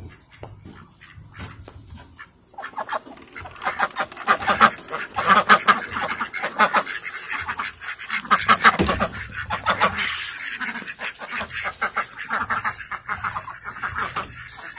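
A flock of domestic ducks, white Pekins among them, quacking together in a rapid, overlapping chorus. It starts sparse and swells into loud quacking about three seconds in.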